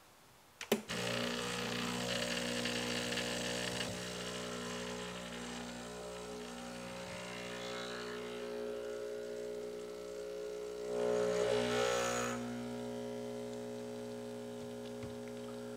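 Breville Barista Express espresso machine's vibratory pump starting with a click just under a second in, then humming steadily as it pushes water through a double shot. The hum gets louder for a moment about eleven seconds in. The pressure gauge reads at the borderline of choking.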